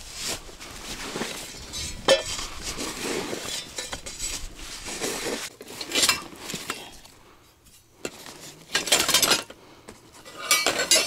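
Clinking and rattling of small hard objects being handled, in irregular bursts, with a quieter stretch about two-thirds of the way through.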